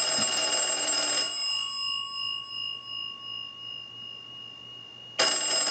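Automatic Electric Model 21 wall telephone's ringer bells ringing on a ring cycle sent by a line analyzer: a ring stops about a second in, the gongs fade out over the next few seconds, and the next ring starts again near the end. The ringer is answering incoming ring current, part of the phone's final checkout.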